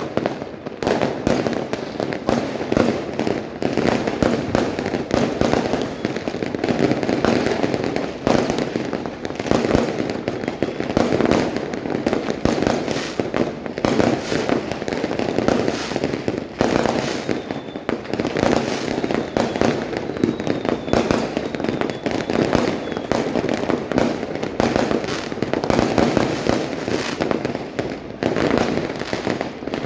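Dense, continuous barrage of fireworks and firecrackers: many bangs and crackles overlapping without a break.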